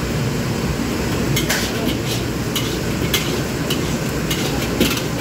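Metal ladle scraping and clacking against a wok as fried rice is stir-fried and tossed, in many irregular strokes over the steady roar of a commercial wok burner.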